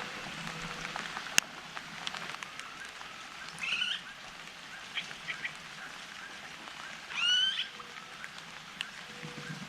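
Bird calls over a steady patter of dripping water after rain: a short series of bending notes about three and a half seconds in, and a louder call that rises and falls in pitch about seven seconds in.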